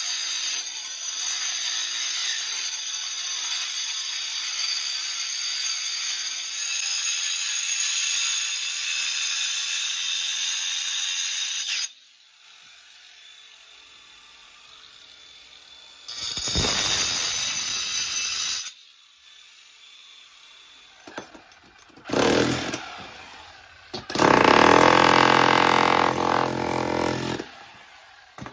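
Handheld power cutter running under load: one long cut of about twelve seconds, then several shorter bursts after it.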